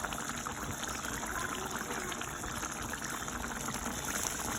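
A pot of curry chicken necks in gravy cooking on the stove: a steady hiss with fine, continuous crackling and bubbling.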